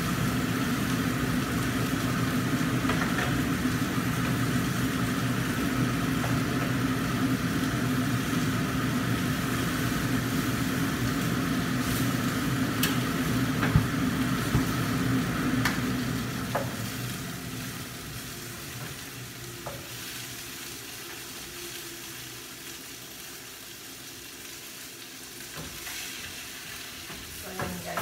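Mackerel frying in a covered wok: a steady sizzle over a low rumble from the stove, the whole sound falling much quieter a little past halfway, with a few light clicks of metal.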